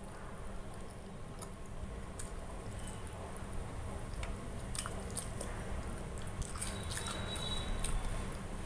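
Close-up eating sounds: chewing pea pulao with the mouth closed, and fingers mixing and squishing the rice with gravy on a steel plate, with scattered small wet clicks and smacks.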